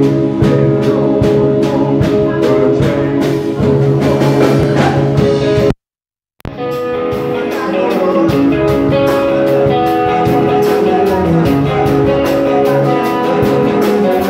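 Live rock band playing electric guitar, keyboard and drums with a steady beat, and a singer at the microphone. The sound cuts out completely for about half a second near the middle, then the band resumes.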